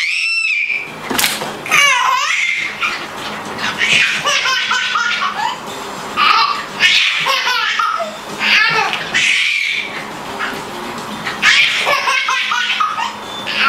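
Baby laughing in repeated bouts, high-pitched laughs rising and falling in pitch with short pauses between them, set off by a dog playing around it.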